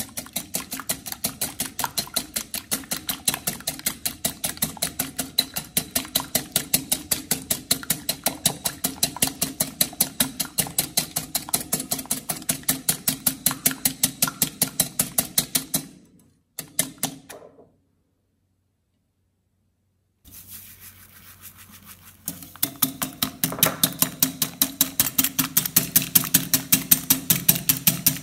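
Wire balloon whisk beating egg whites in a glass bowl, the wires clicking against the glass in a fast, even rhythm of about five strokes a second as the whites foam up for a meringue. The whisking breaks off about sixteen seconds in, with a few seconds of dead silence, then starts again a few seconds before the end.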